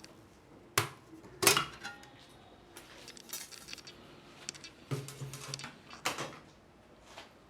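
A handful of sharp clicks and light metallic clinks of small hard objects being handled, loudest about a second in and again around five and six seconds.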